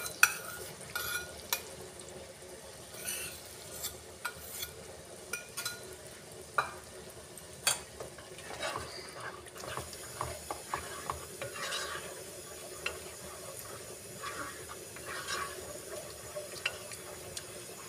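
Spatula stirring fresh cream into fried masala in a nonstick kadhai: scrapes and light clicks against the pan over a faint sizzle. The stirring is kept up so the cream does not stick to the kadhai.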